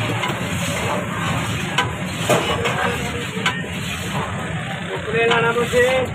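A long metal rod stirring thick haleem in a large steel pot, with a few sharp knocks of metal on the pot's side. A steady low rumble runs underneath.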